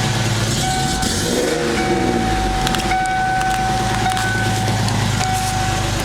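1994 Ford Mustang's 3.8-litre V6 running with a misfire, revved briefly about a second in and settling back, with a high whine coming and going. The owner traced the misfire to a vacuum leak and poor aftermarket ignition coil, wires and plugs.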